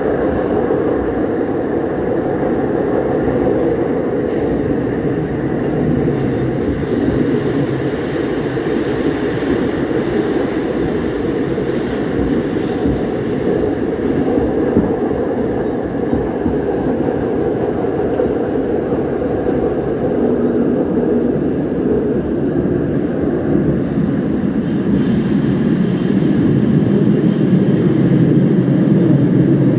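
Seoul Line 4 subway train (set 464, one of the line's Alstom-equipped dual-voltage trains) running through a tunnel, heard from inside the car: a steady, loud rumble of wheels on rail echoing off the tunnel walls. A faint high whine comes and goes, and the noise swells slightly near the end.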